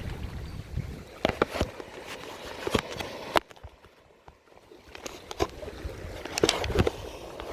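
Sea water washing and sloshing at the shore, broken by a string of sharp clicks and knocks, with a brief lull a little past the middle.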